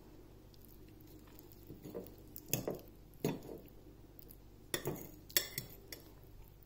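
Metal fork and knife clinking and scraping against a plate while cutting a portion of pie: several separate sharp clinks from about two seconds in.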